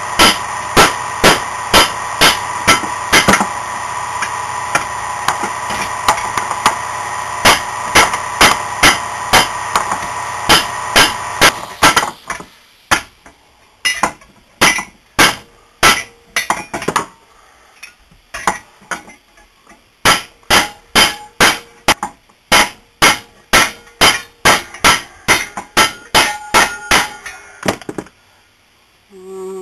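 Hammer blows on a bent bicycle crank to straighten it: runs of sharp strikes, about two to three a second, with short pauses between the runs. A steady hum underneath stops about twelve seconds in.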